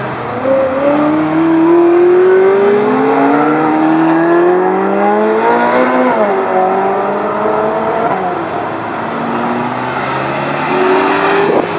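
Ferrari sports-car engines accelerating hard away one after another, the note climbing through the revs and dropping back at each gear change; one sharp rev peaks about six seconds in and falls away.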